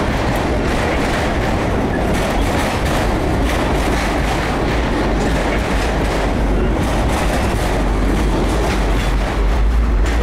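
A freight train of enclosed autorack cars rolling past: a steady rumble of steel wheels on the rails, with repeated clicks as the wheels run over the rail joints.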